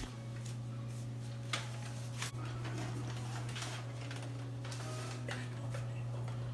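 A steady low hum with a few light clicks and taps scattered over it; the sharpest click comes about a second and a half in.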